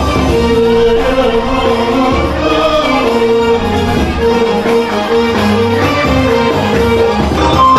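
Music with a steady bass and long held melody notes.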